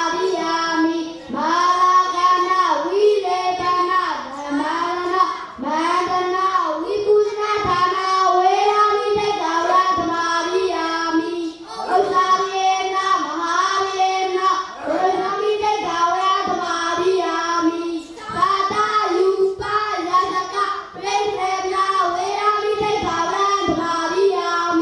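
A young Buddhist novice monk chanting a devotional recitation into a microphone in a sing-song melody, a boy's voice in long held phrases broken by short pauses for breath.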